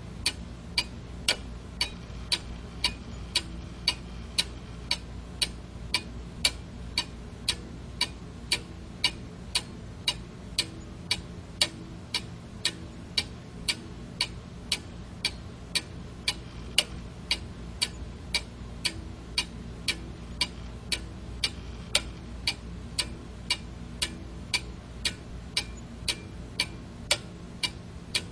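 Analog quartz alarm clock ticking: a steady, even run of sharp ticks over a faint low hum.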